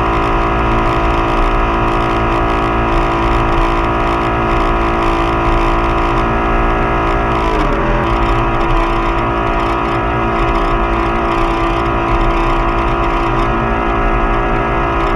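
Motorboat engine running steadily at towing speed, heard close up. About halfway through, its pitch drops as the throttle eases back, and then it holds steady at the lower speed.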